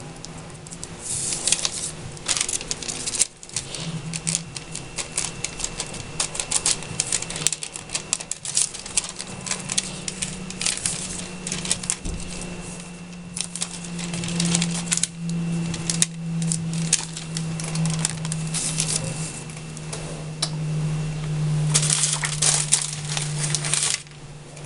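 Thin paper crinkling and crackling up close as painted paper sheets are pressed, rubbed and lifted, a dense run of sharp rustles with short pauses that stops abruptly near the end. A low hum runs underneath.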